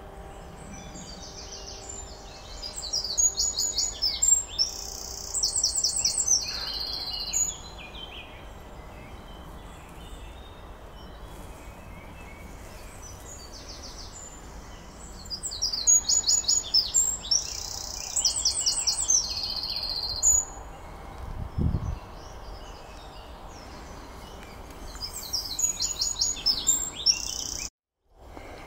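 A songbird singing three separate songs of several seconds each, made of fast runs of repeated high notes, over a steady faint outdoor background hum.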